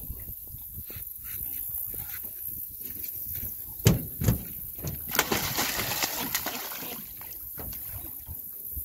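A spotted gar shot with a bowfishing arrow being hauled in on the line beside an aluminium boat, with water splashing as it thrashes and two sharp knocks about four seconds in.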